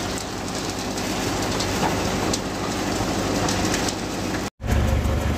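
Concrete pouring from a batching plant's chute into a transit mixer's drum, a steady rushing, rattling noise over a machinery rumble. About four and a half seconds in it cuts off abruptly, and a louder, deeper machine rumble follows.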